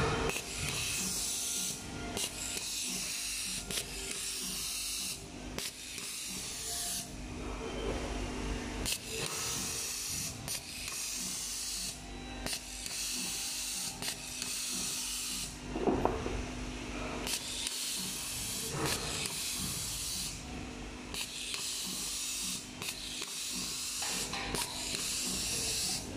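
SWIFT automatic cable tie gun tying one tie after another: a short hiss of compressed air with each tie cycle, repeating every second or two, over a steady low hum. One louder knock comes about two-thirds of the way through.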